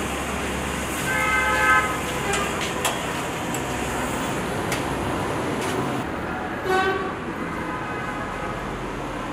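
Street traffic noise with two short vehicle horn toots, one about a second in and a louder one near the seventh second, and a few sharp metal clinks.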